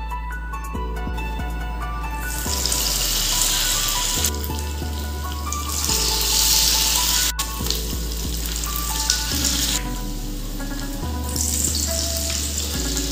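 Batter-coated broccoli florets deep-frying in hot oil, a sizzle that starts about two and a half seconds in and swells several times as more pieces are dropped into the pan. Soft background music plays throughout.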